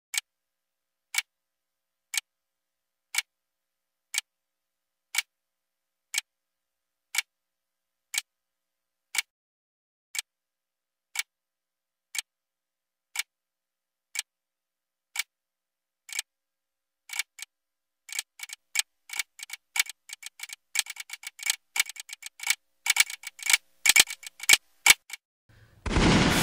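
Clock ticking steadily once a second; then the ticks come faster and pile up into a dense, irregular clatter, cut off near the end by a sudden loud deep hit that rings on.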